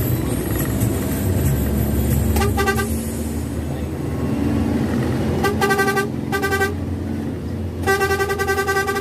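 A bus's Semarangan-style klakson horn sounding in four fluttering, rapidly pulsed blasts: three short ones, then a longer blast near the end. Underneath is the steady low drone of the bus running.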